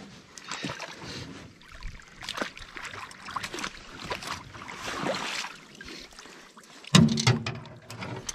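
Shallow marsh water splashing and dripping as a person in waders steps out of a canoe and lifts a wet trap out of the water, with scattered knocks and clicks. A louder thump comes about seven seconds in.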